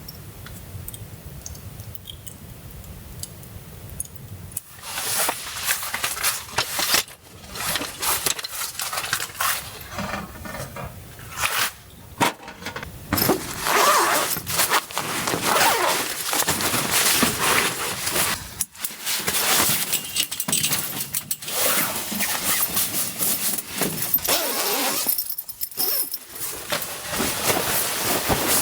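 Irregular rustling, clinking and scraping of gear being handled at close range, starting about five seconds in after a quiet stretch.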